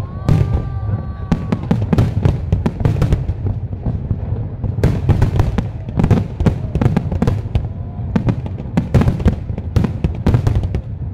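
Aerial fireworks display: large shells bursting in a dense, continuous barrage of sharp reports, several a second over a heavy rumble, thinning briefly about four seconds in.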